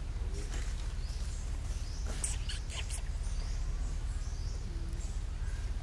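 Outdoor ambience: birds chirping faintly over a steady low rumble, with a quick series of three or four shrill squeaks a little over two seconds in.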